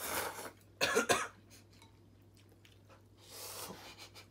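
Ramen noodles being slurped in short, noisy bursts: a brief slurp at the start, a louder, sharper burst about a second in, and a longer slurp a little after three seconds.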